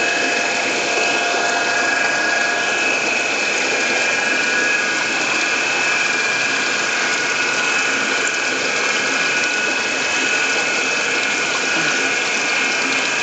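Steady mechanical whirring with a crackly texture and a few constant high whining tones, heard through water.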